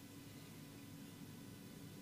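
Near silence: a faint, steady low hum and hiss of room tone.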